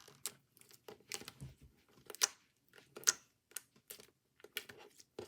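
Old, overactivated homemade slime being worked by hand, giving off scattered sharp pops and clicks at irregular intervals, with quiet gaps between them.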